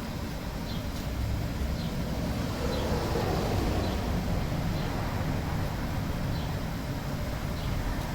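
Steady low rumble of outdoor background noise, like distant traffic, with a faint short high chirp repeating about once a second.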